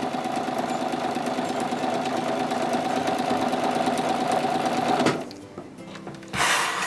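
Home sewing machine stitching steadily through foundation paper and fabric along a straight seam, stopping about five seconds in. A short burst of noise follows near the end.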